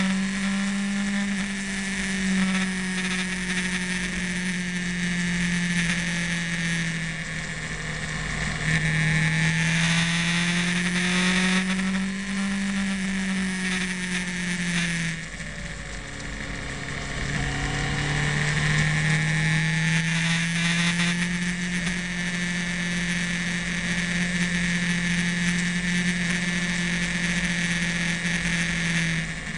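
Motorcycle engine heard from on board while riding, its note rising and falling with the throttle; it drops off about halfway through, then pulls up again, over a steady hiss of wind and road noise.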